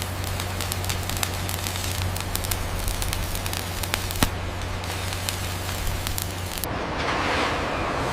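Dense crackling over a steady low hum, with one sharp crack about four seconds in. Near the end the hum cuts off and a hiss takes over.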